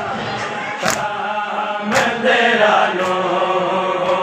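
A group of men chanting a Punjabi noha (mourning lament) for Imam Sajjad in unison, with hand strikes on the chest (matam) landing in time, three beats about a second apart.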